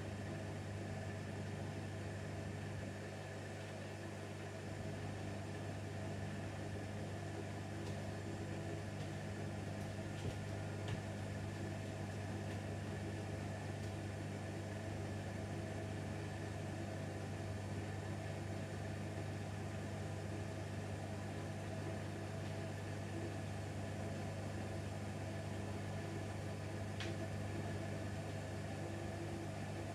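Bosch WAQ28470GB washing machine spinning its empty drum partway through the slow ramp-up toward 1400 rpm, a steady low motor-and-drum hum with a few faint ticks.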